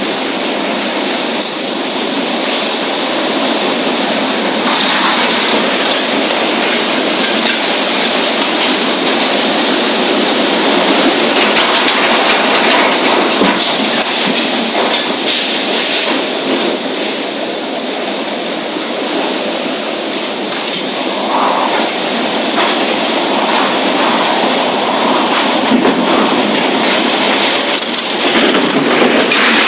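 Loud, steady rushing noise of a storm, with a few sharp cracks through it about halfway in.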